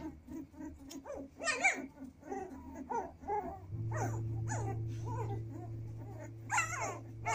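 Dalmatian puppies whimpering and yelping: many short, high, rising-and-falling calls, several a second and overlapping. A steady low hum comes in about halfway through.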